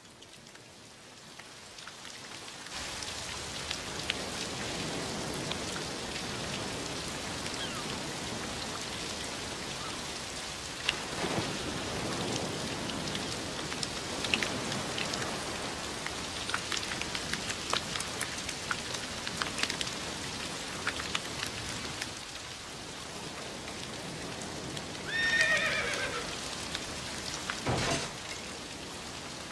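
Steady heavy rain falling on a street, fading in over the first few seconds, with scattered drip and splash ticks. Near the end a brief wavering high-pitched cry and, just after it, a single low thump.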